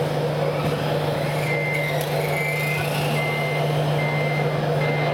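Reversing beeper of a radio-controlled model vehicle: a high, even beep that starts about one and a half seconds in and repeats about once every 0.8 s, five times, over a steady low hum and a busy hall.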